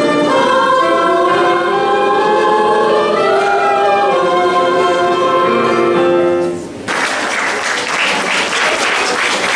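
A school choir of young mixed voices, with instrumental accompaniment, sings the last held chord of a song and stops about two-thirds of the way through. Audience applause breaks out suddenly a moment later.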